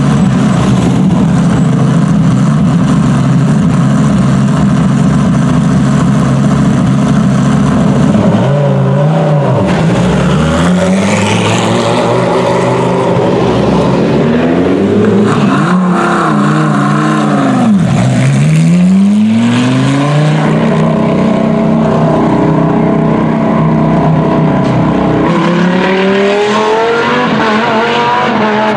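Lamborghini Gallardo GT3's V10 engine running at a steady idle for about eight seconds, then revving, its pitch swinging down and up several times and climbing steadily near the end as it accelerates.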